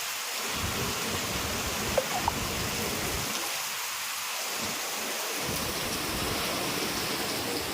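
Heavy rain falling, a steady hiss, with two small clicks about two seconds in.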